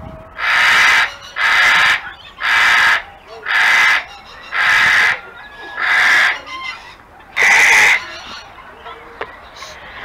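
A cockatoo screeching: seven loud, harsh screeches about a second apart, then it stops.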